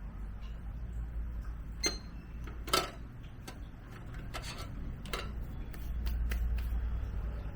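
Scattered sharp clicks and knocks of a desktop PC's memory modules and their retaining clips being handled and reseated, over a low steady hum; the loudest click comes a little under three seconds in.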